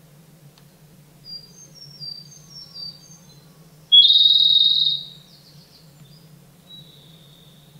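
Japanese robin singing: a few faint, short high notes, then a sudden loud trill about halfway through that lasts about a second, and a fainter, lower trill near the end.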